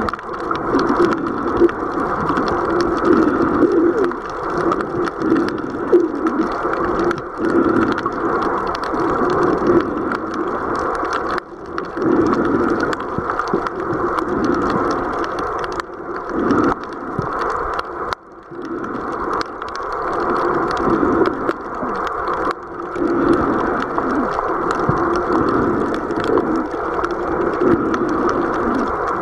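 Underwater water noise picked up by a camera held below the surface: a steady rushing wash that swells and eases every few seconds, with scattered clicks and crackles.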